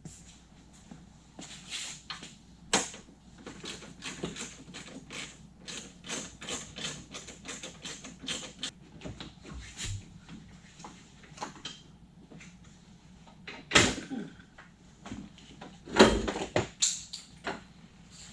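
A run of irregular light clicks and knocks, like small hard objects being handled and set down, with two louder clunks, one about two-thirds of the way through and another a couple of seconds later.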